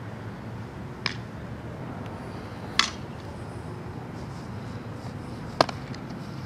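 Three sharp cracks from a softball fielding drill: a softball being hit with a bat and smacking into a leather fielding glove. They come about a second in, near three seconds, and loudest about five and a half seconds in, over a steady low hum.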